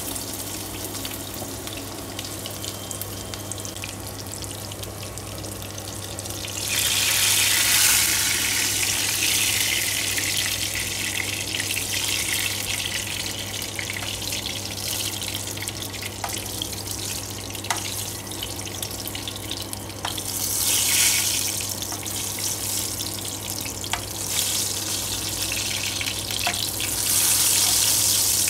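Eggplant slices frying in hot oil in a wok: a steady sizzle that swells much louder three times, about a quarter of the way in, about two-thirds in and near the end. A few light clicks and a steady low hum run underneath.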